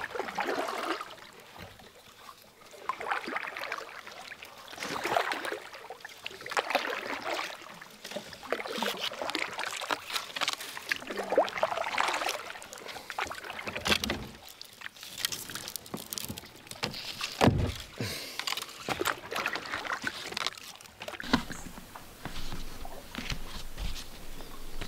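Kayak paddle strokes in the water, coming irregularly every second or two, with water sloshing and dripping off the blades. A few sharp knocks, loudest about two-thirds of the way in.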